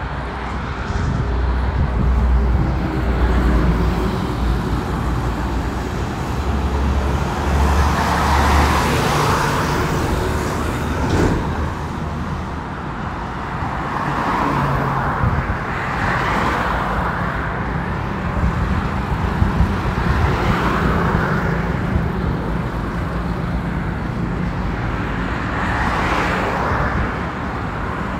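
Highway traffic: cars and trucks passing one after another, each pass swelling and fading over a continuous rumble of road noise.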